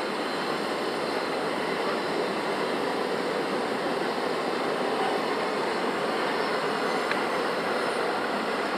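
Train passing on the line, a steady rolling noise of wheels on rails with no breaks.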